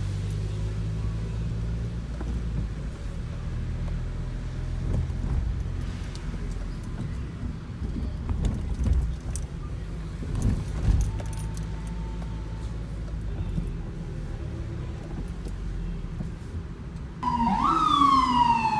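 Steady low rumble of a car driving through city streets. About seventeen seconds in, an emergency vehicle siren starts loud, rises briefly and then falls in a long wail.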